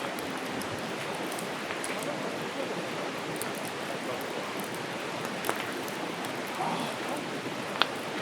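Wood campfire burning: a steady crackling hiss with scattered sharp pops, the loudest pop near the end.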